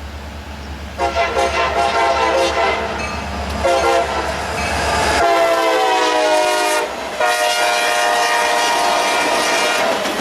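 Locomotive air horn, a third-generation Nathan K5LA five-chime, sounded in three long blasts as a speeding diesel passes. The chord drops slightly in pitch about halfway through as the locomotive goes by (Doppler effect), while the low engine rumble under the first blasts falls away.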